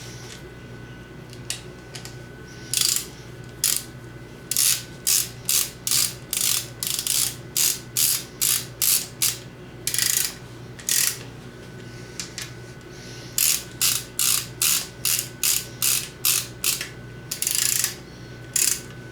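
Hand ratchet wrench being swung back and forth on bolts, its pawl clicking in quick strokes of about two a second, in runs with a couple of short pauses.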